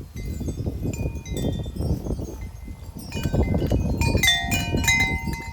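A strong wind gust buffets the microphone with a low rumble while metal wind chimes ring. The strikes are sparse at first, then from about three seconds in they turn into a dense, louder jangle of many tones.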